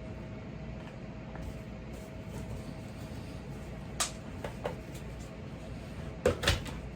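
Kitchen handling sounds over a steady low hum: a few short clicks and knocks, the loudest two close together near the end.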